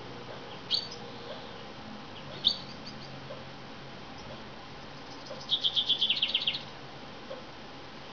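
Male common chaffinch calling: a short high call near the start and another about two and a half seconds in, then a quick run of about ten repeated notes lasting just over a second that drops in pitch at the end.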